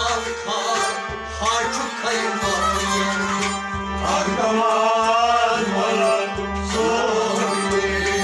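Live Kashmiri folk song: a man sings over plucked long-necked stringed instruments, with a steady low drone and a deep drum stroke roughly every second or so.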